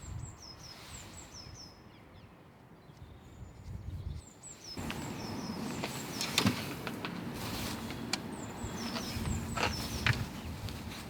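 A small bird chirping repeatedly in short, high, falling notes, with sharp clinks of metal tools and handling noise from work in the engine bay starting about halfway through.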